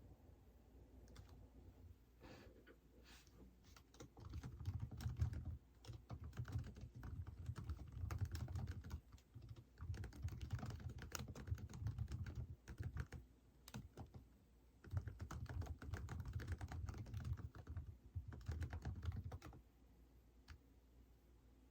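Typing on a computer keyboard in several runs of rapid keystrokes, starting about four seconds in, with short pauses between runs, and stopping shortly before the end.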